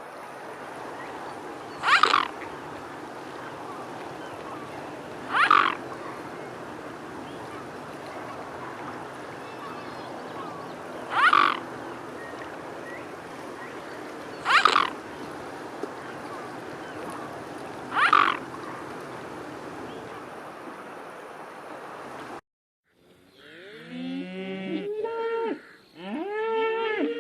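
A short animal call repeats five times, a few seconds apart, over a steady background hiss. After a sudden cut, cattle moo, several wavering calls overlapping near the end.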